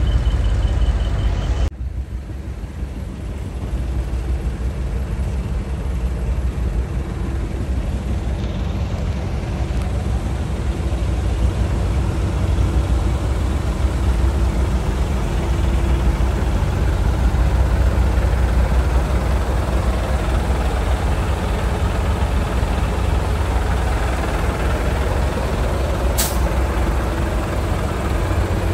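Heavy truck engines running with a steady low rumble, with a single short, sharp hiss of air near the end.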